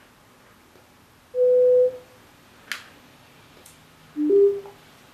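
Zoook Blue ZB-BS100 Bluetooth speaker's electronic prompt tones: a single steady beep lasting about half a second, a power-on tone. Two sharp clicks follow, then a short two-note rising chime near the end as the speaker goes into Bluetooth pairing mode.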